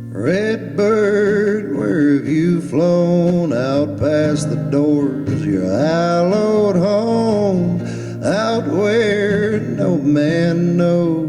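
A man singing a slow country song over acoustic guitar, his held notes wavering with vibrato.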